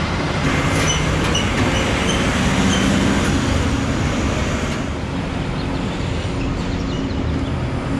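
Road traffic noise: a large vehicle's engine running steadily close by over the rumble of passing traffic.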